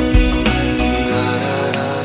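Background music in an instrumental gap of a romantic Hindi song: a drum beat that stops about a second in, leaving held notes.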